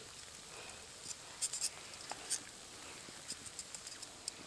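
Faint soft taps and small wet dabbing sounds as tongs drop chopped tomato salsa onto a tortilla, a few short ticks scattered across a few seconds.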